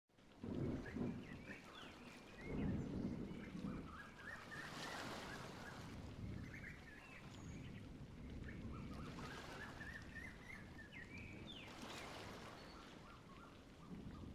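Faint birds chirping in quick, scattered runs over a low outdoor rumble and hiss.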